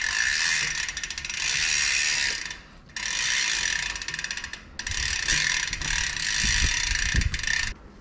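Rear mountain bike hub's freehub buzzing as it freewheels: a fast, continuous ratchet clicking in three long runs with short breaks between, the sound of the DT Swiss 240 hub's pawl-less ratchet spinning.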